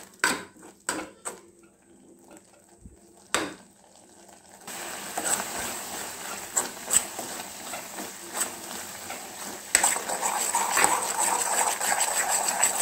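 A steel spoon stirring and scraping carrot halwa in a metal pot, with a few sharp clicks of the spoon against the pot. About four and a half seconds in, a steady sizzle of bubbling ghee and melted sugar starts under the stirring and gets louder near the end, as the halwa cooks down in the sugar to thicken.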